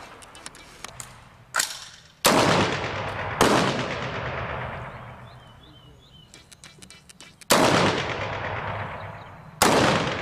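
Four loud single rifle shots from an M16 rifle, fired at uneven intervals, each followed by a long echo that dies away. Before them come a few light clicks and a smaller, sharper report.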